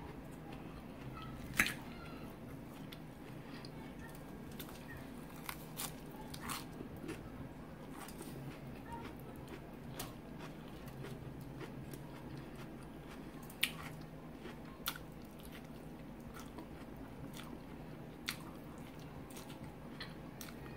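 Close-up chewing and crunching of salad greens and chicken wings, with scattered sharp clicks over a low steady hum.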